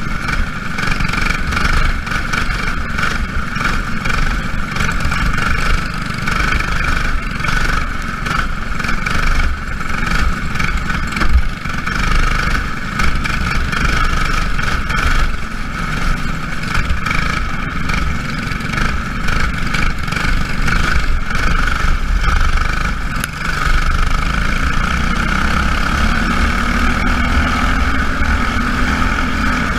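Racing engines running steadily at speed, a continuous high drone over a low rumble.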